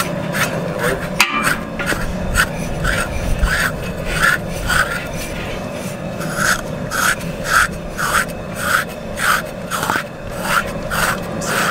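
Metal bell hog scrapers rasping the hair off a scalded hog's hide in quick, even strokes, about two a second. One sharp knock about a second in.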